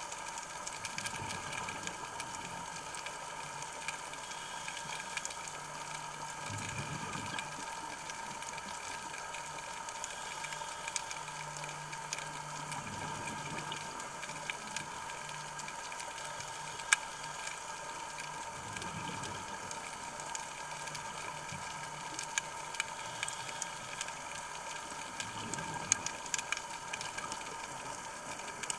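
Underwater sound of a scuba diver breathing through a regulator, with a low rush of exhaled bubbles about every six seconds, four times. Under it run a steady hum and scattered sharp clicks.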